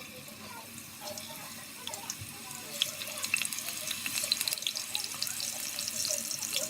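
Cut potatoes frying in hot oil in a pot: a sizzling hiss full of crackles and pops, building up and growing louder from about two seconds in.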